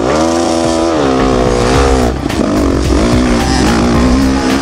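Dirt bike engine launching hard from a standing start and accelerating at full throttle, its pitch climbing, dropping at a gear change about two seconds in, then climbing again.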